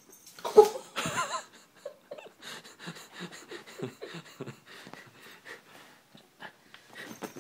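A sharp thump about half a second in as a jumping cat hits the wall and falls. It is followed by a person's breathless, wheezing laughter in quick rhythmic gasps.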